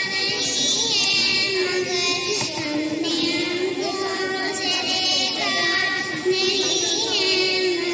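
A young girl singing a naat solo into a microphone, holding long notes that waver and slide in pitch.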